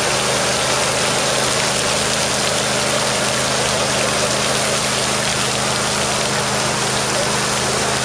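An engine running steadily at idle under a constant hiss of water pouring down from an artificial rain rig.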